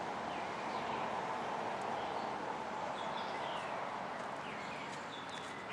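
Outdoor ambience: a steady hiss with a few short, faint bird chirps scattered through it.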